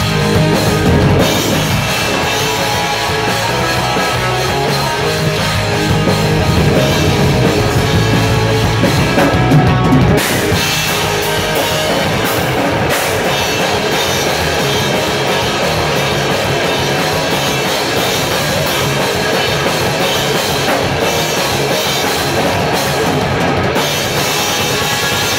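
Rock band playing live: electric bass, electric guitars and a drum kit. The low end is heaviest until about ten seconds in, then thins out.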